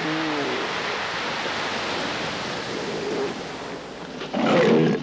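Surf washing on a rookery beach while northern elephant seals call. A few short calls come early, and a loud, gravelly bull elephant seal bellow starts near the end.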